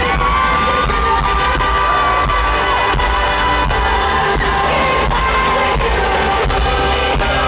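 Amplified live pop music at a stadium concert: a woman singing long held notes over a band with heavy bass and a steady drum beat.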